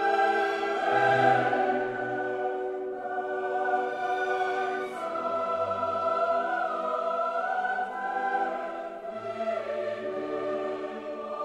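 Slow choral soundtrack music: voices singing long held chords over orchestral backing, the chords shifting every few seconds.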